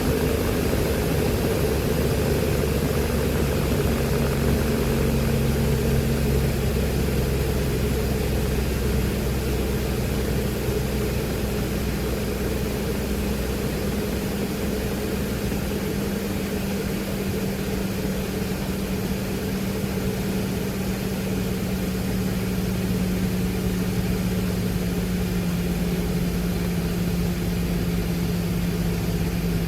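Glastar light aircraft's piston engine and propeller droning steadily in flight, the pitch easing lower about a quarter of the way in and then sinking slowly.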